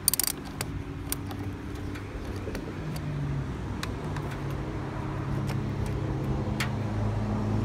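A few sharp metal clicks from a wrench on a car battery's terminal, loudest right at the start, over a steady low engine hum that grows slowly louder.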